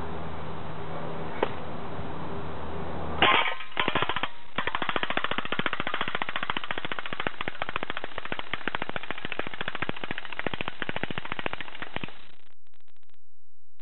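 JG Ika Zuchi electric airsoft gun firing full-auto, with the BBs clattering into an aluminium drink can. A short burst comes about three seconds in, then after a brief pause a long burst of rapid shots lasting about eight seconds that stops abruptly. The rate of fire is very high: about 1,000 rounds a minute or more by the owner's estimate, on an 8.4-volt battery.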